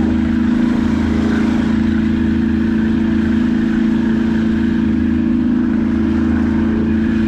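Motorboat engine running steadily at cruising speed, with the rush of water and wind as the boat moves across the lake.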